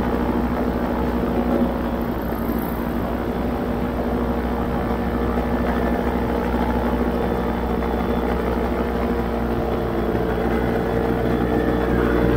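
Paramotor engine and propeller running steadily in flight, a constant drone that grows a little louder near the end.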